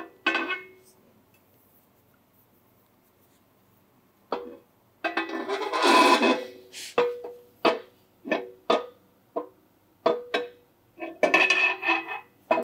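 A steel axle shaft being worked into a Ford 9-inch rear axle housing: a clink, then a long scraping slide, then a string of sharp metal knocks, each leaving a short ringing tone, as the shaft is jiggled to seat its splines in the third member.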